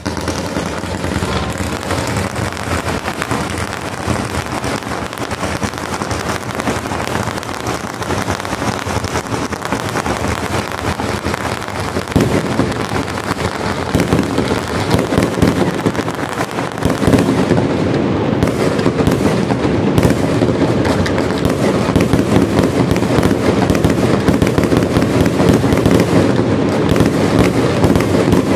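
Fireworks display: a dense, unbroken barrage of launches, bursts and crackling. It grows louder about twelve seconds in and again a few seconds later.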